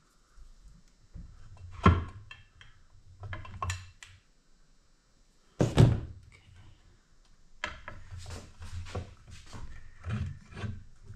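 Hand tools and parts knocking against the outboard motor's housing during reassembly: a few sharp thunks, the loudest about six seconds in, then a quick run of light clicks and taps.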